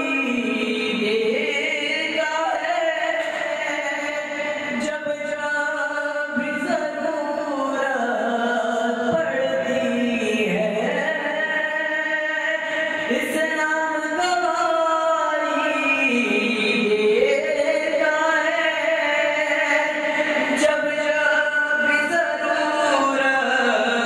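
A man's voice reciting a manqabat, a devotional poem, sung unbroken in long phrases with notes held and sliding up and down.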